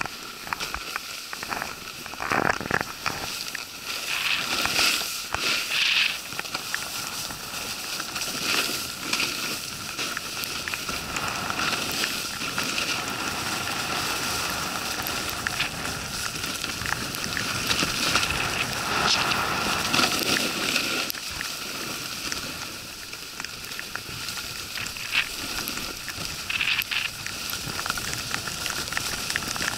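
Snowboard sliding and carving over groomed snow, a continuous crackling scrape with louder bursts every few seconds. Heard from an action camera carried on the rider.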